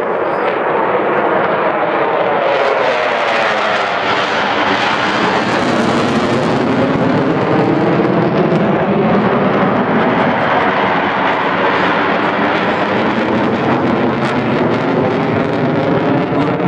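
F-16 fighter jet's engine roaring as it flies overhead: a loud, steady jet roar whose tone slowly shifts and sweeps as the aircraft passes.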